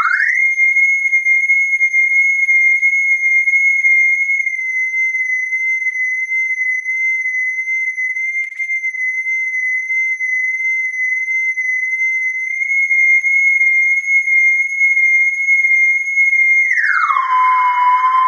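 A loud, steady, high-pitched electronic tone that slides up at the start, holds, then slides back down to a lower pitch near the end.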